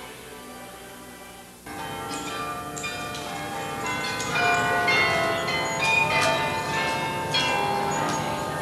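Church tower carillon ringing: many tuned bells at different pitches struck one after another, cutting in suddenly about two seconds in over the fading end of music.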